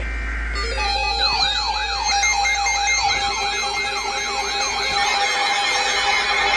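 Electronic siren yelping: its pitch sweeps up and down about four times a second over a steady held tone, starting about a second in.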